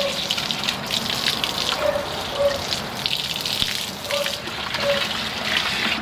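Seat belt webbing being swished and plunged by hand in a bucket of rinse water: continuous splashing and sloshing.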